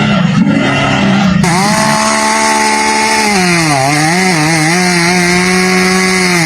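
Chainsaw running at high revs. About two seconds after it starts, its pitch drops and wavers for about a second as it bogs under load in a cut, then it steadies again.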